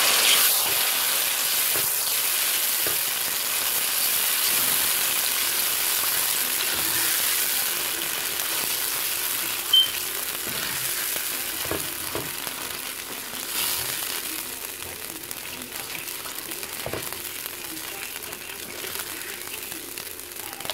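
Curry paste and grated cucumber sizzling in hot oil as a spatula stirs and scrapes the pan; the sizzle slowly quietens over the second half. A short high ping sounds once about ten seconds in.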